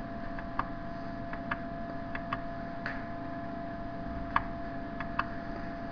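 Steady low room hum with a thin constant tone, broken by scattered sharp clicks at irregular intervals, the clearest about half a second in and again near four and a half seconds.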